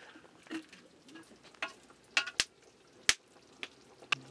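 A metal ladle stirring and scraping in a large metal cooking pot of steaming rice over a wood fire, with several sharp clanks of the ladle against the pot, the loudest about three seconds in.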